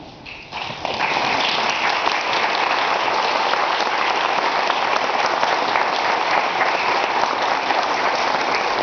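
Audience applauding, beginning about a second in and holding steady.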